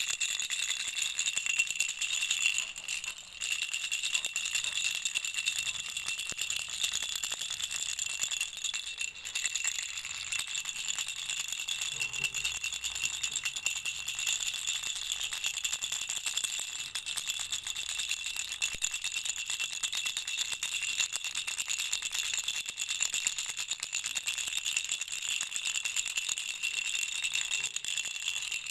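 Baby rattle shaken continuously, a dense jingling patter with a bright ringing like small bells, pausing briefly about three seconds in.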